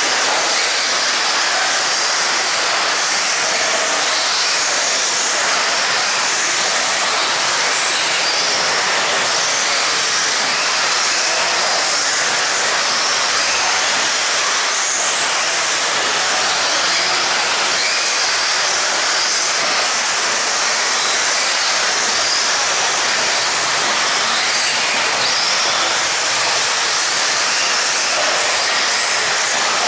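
Radio-controlled 2WD buggies racing on an indoor dirt track, heard as a steady high hiss of small motors and tyres on dirt with no change in level.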